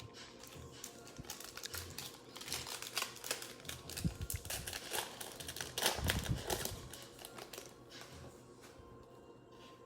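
Trading cards and pack wrappers being handled: a run of soft clicks, taps and crinkles, busiest in the middle and thinning out near the end.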